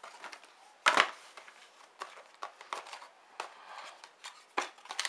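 Cardboard phone-box packaging handled by hand as an insert tray is lifted out: a sharp knock about a second in, scattered small clicks and rustles, and another knock near the end.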